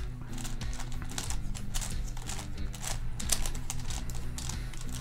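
Rapid, irregular plastic clicking and clacking of a WitEden 3x3x15 cuboid puzzle as its thin layers are turned in quick succession while being scrambled. The puzzle turns stiffly and is loud, with a rattle-like sound.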